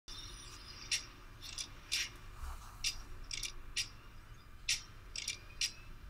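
Sharp, high clicks, about a dozen at uneven intervals, some singly and some in quick pairs, over a faint low hum: the clicking sound effect of an animated intro.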